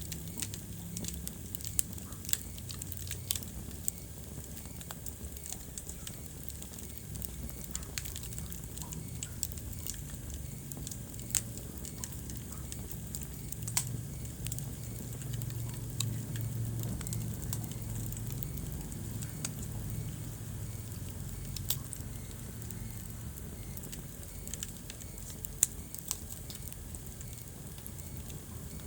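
Wood fire crackling in a fireplace: irregular sharp pops and snaps over a low, steady rumble of flame, with louder pops about 2 seconds in and near the end.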